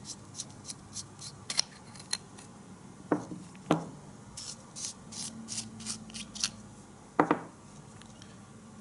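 Titanium flashlight's threaded head being twisted by hand, giving a run of short, faint metal scraping ticks from the threads. Three louder sharp knocks come about three, three and a half and seven seconds in.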